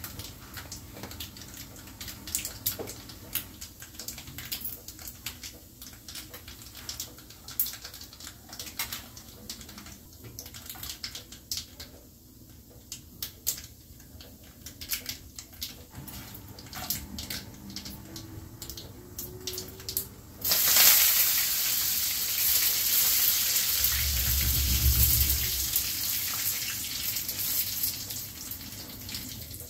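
Hot oil in a small frying pan during tempering: mustard seeds and dals crackling and popping irregularly. About two-thirds of the way through, a sudden loud sizzle starts and slowly fades as curry leaves and red chillies hit the oil.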